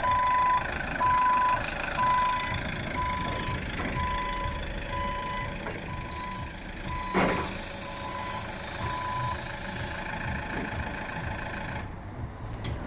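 Delivery truck's reversing alarm beeping at one steady pitch, about one and a half beeps a second, over its low-running engine; the beeping stops about nine seconds in. A loud hiss of air starts about seven seconds in and lasts about three seconds.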